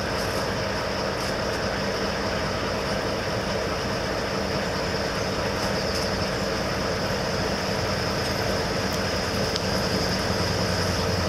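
A vehicle travelling at a constant speed: an even engine drone under a steady rushing noise, with no change in pitch.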